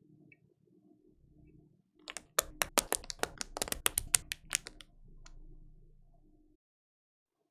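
Typing on a Zoom75 custom mechanical keyboard with lubed Banana Split 62g switches, a polycarbonate plate and PBT Cherry-profile keycaps. A quick run of about twenty keystrokes starts about two seconds in and lasts under three seconds.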